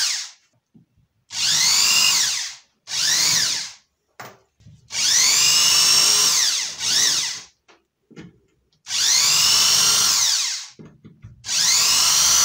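Cordless drill run in several short bursts while drilling holes in a sheet. Each run whines up to speed and winds down again, with brief pauses between runs.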